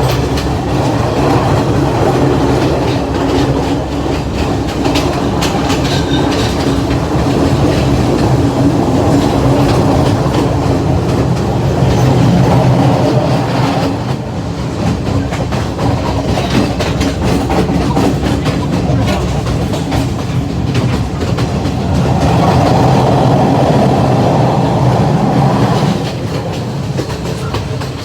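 Train running along the track: a steady rumble of wheels on rails with the clatter of rail joints, dipping a little quieter about halfway through and again for the last couple of seconds.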